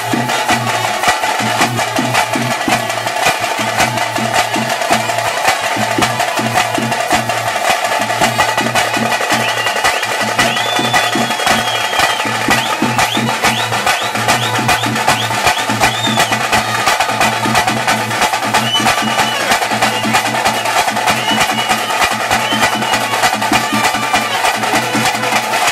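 Tase drums beaten fast and loud in a steady, driving rhythm, the drumming that carries the pili vesha tiger dance. A shrill wavering tone rises over the drumming for a few seconds near the middle.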